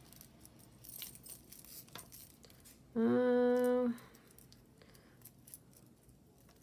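Small metal jewelry pieces clinking faintly as they are handled. About three seconds in, a woman hums a steady "mmm" for about a second; it is the loudest sound.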